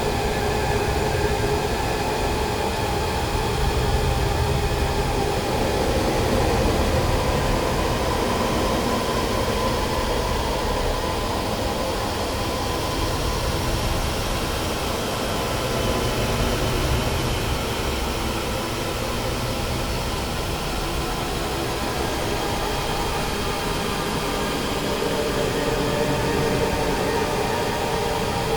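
Dense, steady noise drone from an experimental music recording, with faint held tones inside it and no beat or rhythm.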